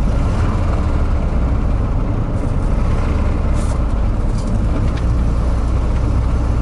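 Ford Transit's 1.6 Sierra petrol engine running not fully warmed up, with a rapid 'ty-ty-ty' tapping knock. The owner suspects a worn connecting-rod bearing on a crankshaft journal, though it could be the camshaft.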